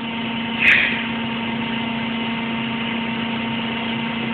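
A steady mechanical hum holding one low tone at an even level, like a running motor or appliance, with a short rustle about a second in.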